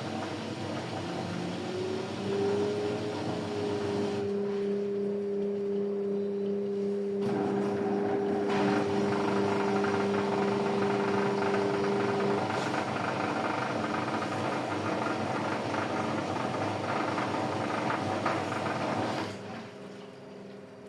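LG washing machine on its spin cycle: the drum spins with a steady motor whine that rises slightly in pitch over the first couple of seconds, then holds steady. The whine stops about 12 seconds in, and the spinning noise drops off sharply near the end.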